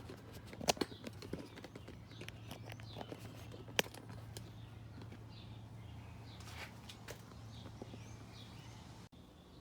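Scattered light knocks and clicks, the loudest a sharp knock about four seconds in, over a steady low hum that cuts off suddenly near the end; faint bird chirps in the background.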